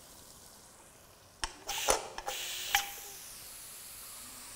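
A pressure cooker being opened: a few sharp metal clicks and a clink that rings briefly, then a soft, steady hiss of escaping steam.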